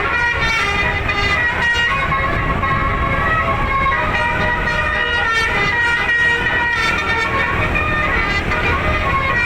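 Telolet basuri multi-trumpet musical air horn of a bus playing a tune of held notes that change pitch every second or so, over a low rumble.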